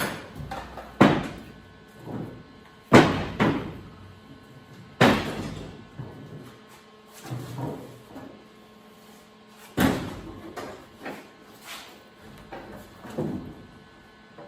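Irregular heavy metallic bangs and knocks on the steel sheet metal of a 1938 Ford truck cab, each ringing briefly. The loudest blows come about every two seconds, with lighter knocks between them.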